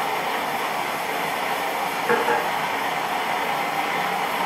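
Gas forge burner running with a steady roaring hiss as the forge heats. A brief, louder sound stands out about two seconds in.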